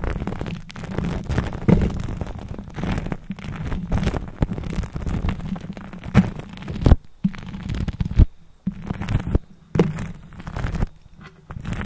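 Lipstick rubbed and dragged directly on a microphone, giving an uneven scratchy rubbing with a deep rumble and a few sharp knocks about seven and eight seconds in.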